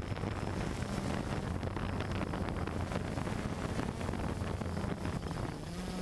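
Quadcopter drone's motors and propellers running with a steady buzzing hum as it sets down on a mesh table, mixed with wind noise from the propeller wash on its microphone. The hum rises slightly in pitch near the end.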